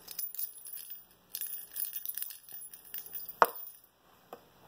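Light clicking and rattling of a cat toy being played with, typical of the plastic ball rolling in a circular track toy, with one sharp knock about three and a half seconds in.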